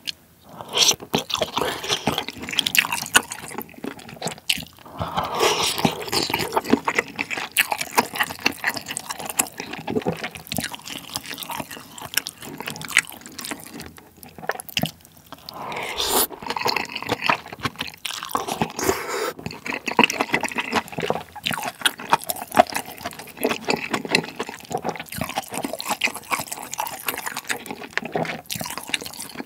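Close-miked wet chewing and slurping of spicy malatang with Chinese glass noodles, full of small wet smacking clicks, with brief lulls between mouthfuls.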